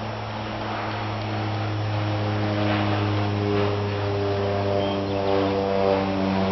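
Electric drill motor running steadily, a continuous hum that grows a little louder and fuller over the first few seconds.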